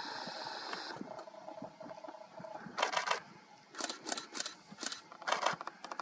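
Camera shutters firing in short rapid bursts, about six bursts in the second half. Before them a steady whirr cuts off about a second in.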